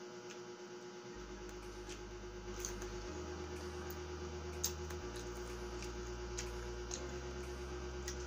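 Soft background music with a slow bass line that changes note about every two seconds. Scattered sharp clicks of chewing and eating crispy fried chicken skin run over it.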